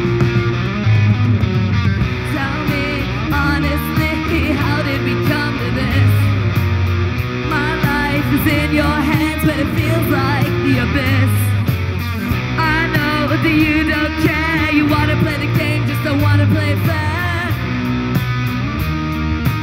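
Live rock band playing an instrumental passage on distorted electric guitars, bass and drums, with a steady driving beat. A wavering, bending lead line runs through the middle.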